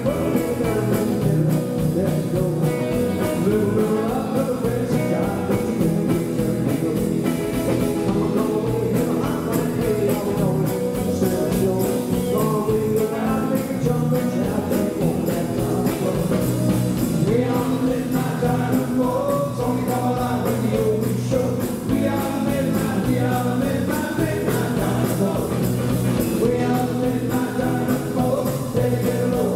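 Live rockabilly band playing: electric guitars and drum kit with a male lead vocal.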